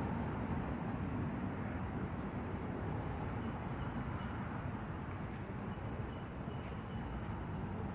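Steady low outdoor background rumble, like distant traffic, with faint high-pitched chirps in three short clusters.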